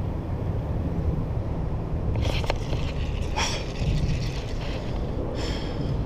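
Steady low rumble of traffic on the bridge overhead, with a few short scuffing noises about two, three and a half and five and a half seconds in.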